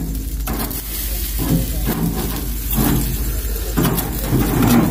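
Lobster and fish sizzling and crackling on a grill, with indistinct voices talking in the background and a steady low rumble underneath.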